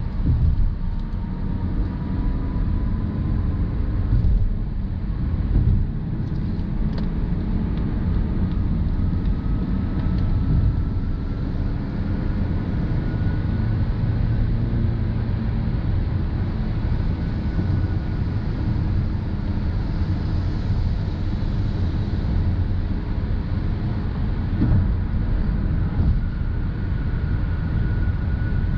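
Cabin noise of a 2020 Mazda CX-30 AWD, with its 2.5-litre four-cylinder, driving at highway speed: a steady low rumble of road, tyre and engine noise. A faint whine climbs slowly in pitch, and a few soft thumps come from the road surface.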